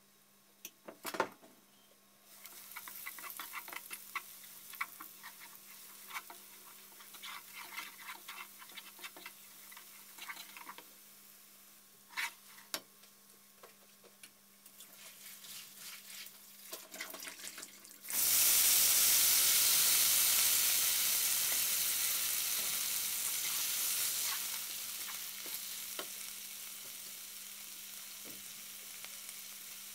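Minced garlic frying in oil in a nonstick wok, crackling lightly while a spatula stirs and scrapes it. About eighteen seconds in, a loud sizzle erupts as cabbage and carrot hit the hot oil, then slowly dies down.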